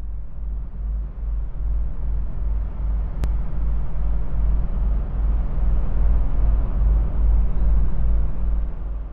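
A low rumbling drone of trailer sound design, with a deep throb about three times a second. It grows louder and then fades out at the very end.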